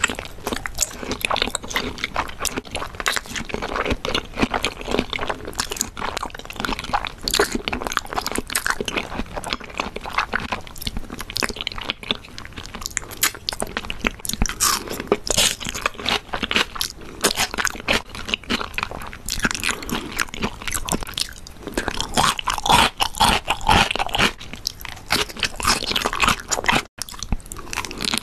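Close-up ASMR eating sounds: continuous wet chewing and biting of raw salmon sashimi and sea grapes, a dense run of small clicks and crackles.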